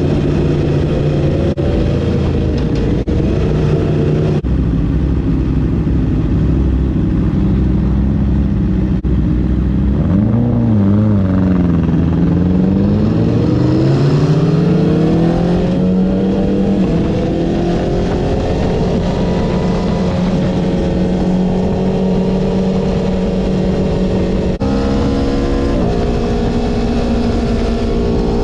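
Aprilia Tuono 1100's V4 engine at speed on track, stepping up through quick gear changes in the first few seconds. Its pitch dips and wavers about ten seconds in, climbs and holds steady, then changes gear again and rises near the end.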